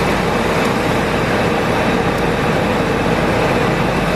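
1999 Ford Expedition's V8 idling steadily but roughly, misfiring with its number 1 ignition coil unplugged on top of the cylinder 2 misfire (code P0302).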